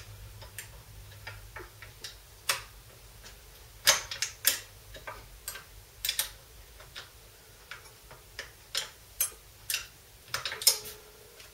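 Irregular sharp metallic clicks from a spanner working the 10 mm adjuster nut on a VW T3 door mirror's pivot, tightening it up against its spring to stiffen a wobbly mirror.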